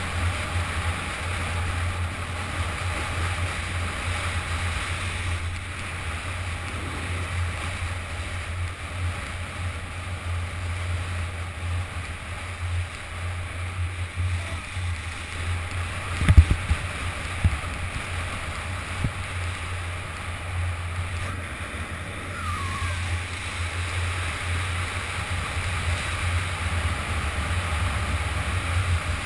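Skis hissing and scraping over groomed snow on a fast downhill run, under a steady wind rumble on the action camera's microphone. A few sharp knocks come a little past halfway.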